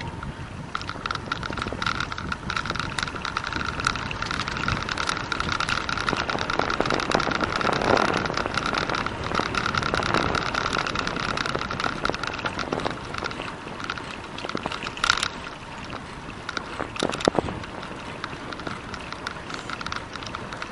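Wind rushing over the microphone and tyre noise on pavement from a bicycle riding along at speed. A steady high whine runs through the first half, and a couple of sharp clicks come in the second half.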